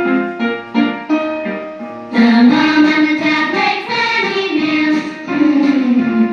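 A children's phonics song for the letter 'm': a short instrumental opening of separate notes, then sung voices come in about two seconds in over the accompaniment.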